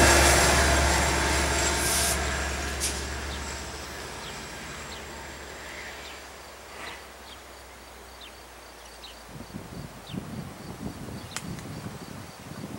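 Amtrak California F59PHI diesel locomotive, with its EMD 12-cylinder 710 engine, pushing its bilevel train away past the trackside. The engine hum and train noise fade steadily over about six seconds. Faint bird chirps follow, then irregular low rumbles near the end.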